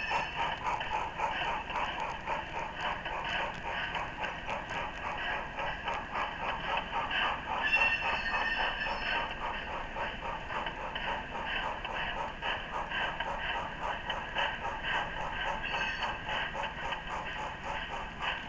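HO scale model train running on the layout, a steady fast clicking and chattering of the running train, with a brief high tone about eight seconds in and a shorter one near sixteen seconds.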